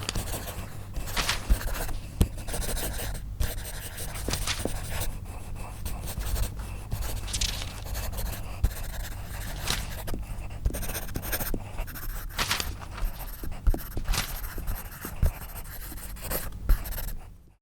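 Pencil scratching and scribbling on paper: a continuous run of scratchy strokes with scattered sharp clicks over a low steady hum. It cuts off suddenly near the end.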